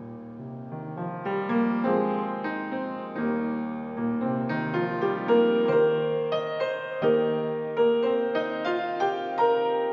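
Solo grand piano playing a flowing passage of many quick notes. It grows louder about a second in, and a high note recurs again and again through the middle of the passage.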